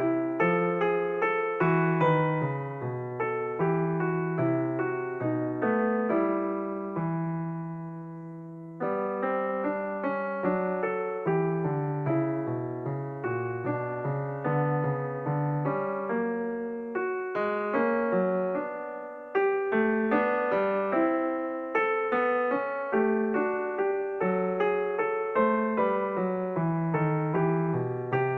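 Solo piano music: a steady flow of struck notes and chords. About eight seconds in a held chord fades away before the playing picks up again, and a little past the middle the music breaks off and restarts abruptly.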